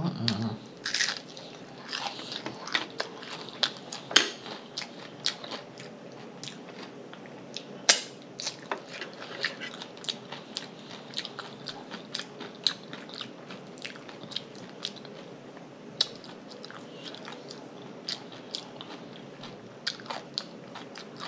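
A person chewing food with frequent wet lip smacks and mouth clicks, irregular and steady, with a few louder smacks.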